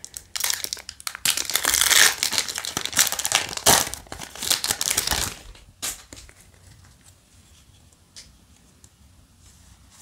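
Foil wrapper of a Yu-Gi-Oh! booster pack being torn open and crinkled by hand, loud crinkling and tearing for about five seconds. After that it turns quiet, with a few faint ticks as the cards are taken out and handled.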